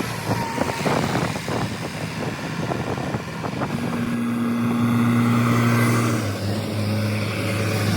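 A heavy diesel vehicle's engine runs with clattering knocks and rattles over the first few seconds. A steady engine drone then builds, grows louder, and shifts pitch about six seconds in.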